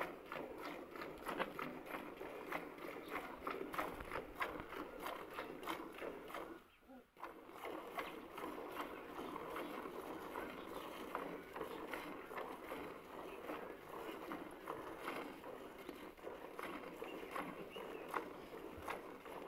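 A cow being milked by hand: quick rhythmic squirts of milk hitting a plastic bucket of frothy milk. There is a brief pause about seven seconds in.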